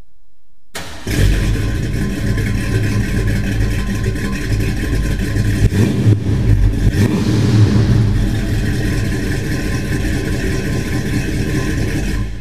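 A 1962 Ford F100's carbureted V8 starting about a second in, catching at once, then running at idle. It is blipped a few times around the middle before settling back to idle.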